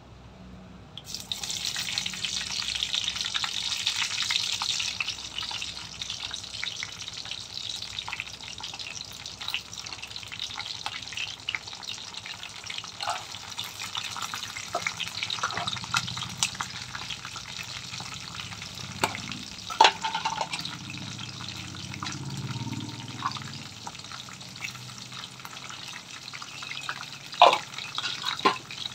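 Hot oil sizzling in an iron kadai as peanuts and green chillies are dropped into a tempering of dried red chillies; the sizzle starts suddenly about a second in, is loudest for the next few seconds, then settles to a steadier frying hiss. A few sharp knocks on the pan stand out, the loudest near the end.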